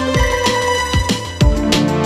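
Background music with electronic instruments, held melodic tones and a steady drum beat.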